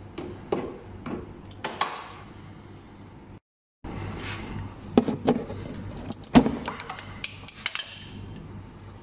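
Irregular clicks, knocks and clinks of a metal spanner and plastic fasteners against a car's plastic wheel-arch liner, over a low steady hum. The sound cuts out briefly a little past three seconds in, and the loudest knocks come around five and six seconds in.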